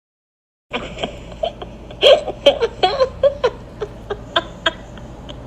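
A person's voice in a quick run of short vocal bursts, about a dozen of them at uneven spacing, starting after a moment of silence.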